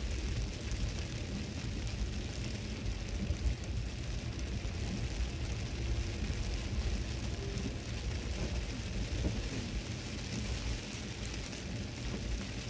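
Steady cabin noise of a Toyota Celsior driving on a rain-soaked road: a low road rumble with the hiss of tyres and spray on wet pavement and rain on the car.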